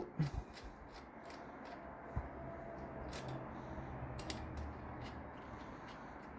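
Faint scattered clicks and light metal taps of a hex key undoing a bicycle's stem top cap bolt, with a single soft knock about two seconds in.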